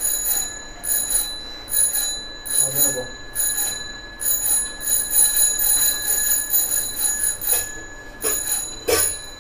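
A small metal bell ringing over and over, short high rings at an uneven pace of about two or three a second.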